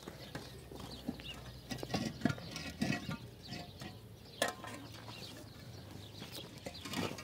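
Irregular knocks and scrapes of hollow concrete blocks being set down and shifted into place on stony dirt ground, with a few sharper knocks.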